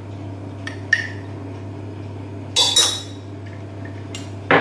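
A metal utensil clinking against a stainless steel pot as ground spice is spooned onto chicken pieces. There are about six short clinks, the loudest pair a little past halfway, over a steady low hum.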